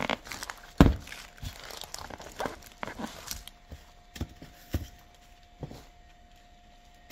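Rustling and crackling of holly and fir foliage being handled and wired onto a moss wreath ring, with irregular clicks and knocks, the loudest about a second in.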